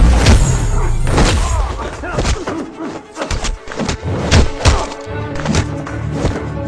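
Action-film fight soundtrack: a rapid, irregular series of punch and kick impact effects over dramatic score music.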